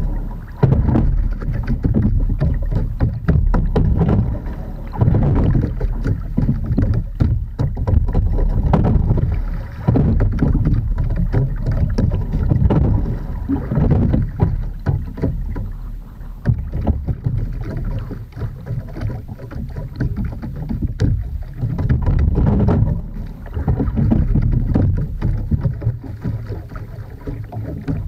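Water splashing and washing along the hull of an Edon TS515 sculling boat as it is rowed, with wind on the microphone; the noise swells and falls every few seconds.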